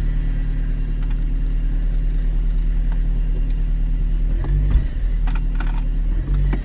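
Ford hybrid's gasoline engine running steadily after being brought on with the gas pedal, its 12-volt battery just recharged after going dead. The engine swells briefly twice, about four and a half and six seconds in.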